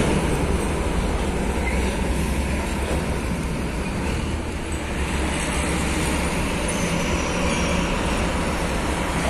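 Road traffic: diesel container trucks and motorcycles passing, a steady low rumble with no single sound standing out.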